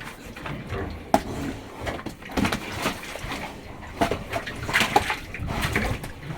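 Pietrain pigs in their pen, making wet, sloshing snuffling noises in irregular bursts, with a sharp knock about a second in.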